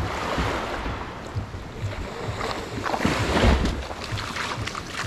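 Surf washing on the beach, with wind buffeting the microphone; a wave surges loudest about three and a half seconds in. Steady low thumps of footsteps run underneath.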